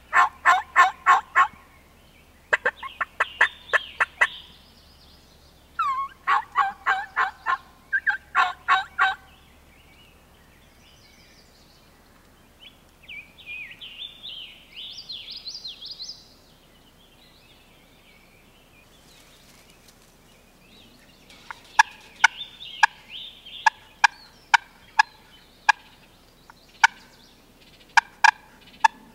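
Hen turkey calling imitated on a turkey call: several runs of rapid, loud yelps, then a quieter run of higher notes in the middle, and from about two thirds of the way in, sharp single cutts spaced unevenly. The varied calling is meant to draw in a tom.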